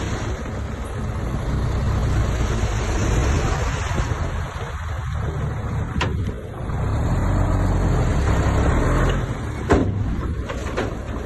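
Heavy diesel engine of a Komatsu D58P bulldozer running under load, rising and easing, with a sharp metallic knock about six seconds in and another near the end.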